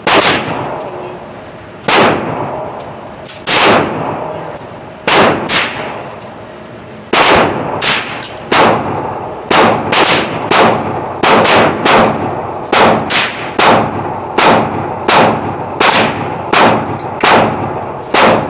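Derya Arms TM22 .22 LR semi-automatic rifle firing a long string of single shots at an uneven pace, coming faster in the second half. Each crack is followed by a ringing echo.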